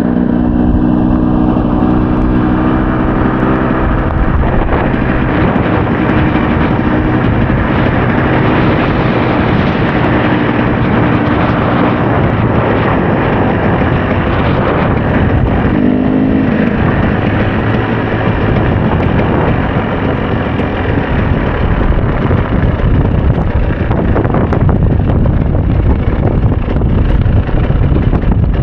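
KTM EXC 300 two-stroke enduro motorcycle engine running, its note coming through clearly at the start, around the middle and again a little later, under heavy wind noise on the microphone.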